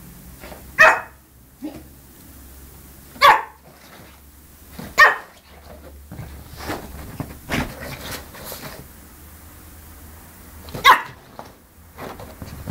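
Yorkshire terrier puppy barking: four sharp, high yaps spaced a second or more apart, with a few fainter sounds between.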